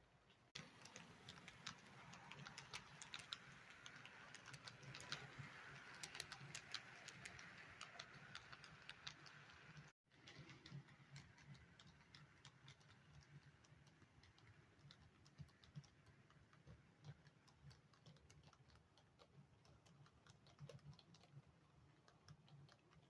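Model train running on track, its wheels clicking rapidly and unevenly over the rail joints with a low hum underneath. The sound cuts out briefly about ten seconds in and resumes quieter.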